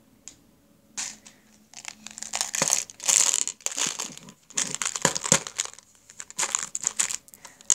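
Irregular crinkling and rustling of something handled close to the microphone, starting about a second in and coming in short bursts.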